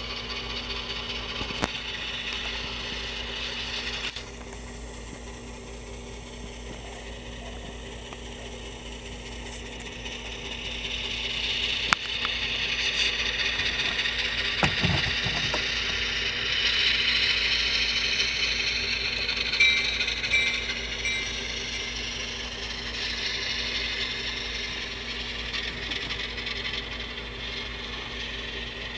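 Model freight train running on a layout: the diesel locomotive's small electric motor whirring and the wheels rattling along the track, growing louder about halfway through as the train passes close, with a steady low hum underneath.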